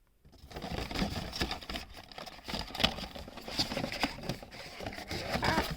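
Crinkling and clicking of plastic packaging being handled as small gel pots are taken out, a dense run of rustles and light taps starting about half a second in.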